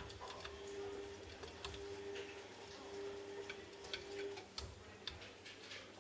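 Washing machine running with a steady hum that stops about four and a half seconds in, with irregular light clicks and taps throughout.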